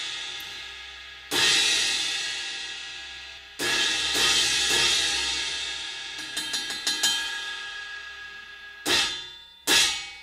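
Handmade B20 bronze 18-inch crash cymbal struck with a drumstick. Two full crashes, about one and a half and three and a half seconds in, each ring out and fade slowly. Light quick taps follow around six to seven seconds, then two short hits near the end that die away quickly.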